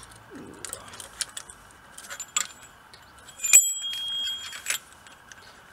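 Small metallic clicks and clinks from a brake caliper and hand tools being handled, with one louder clink about three and a half seconds in that rings on for about a second.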